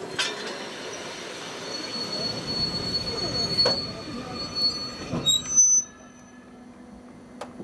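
Passenger train's steel wheels squealing as the coach rolls through curving track and points, with a steady high squeal over the rumble of the running gear and a few sharp clanks. About six seconds in, the noise drops abruptly to a quieter hum.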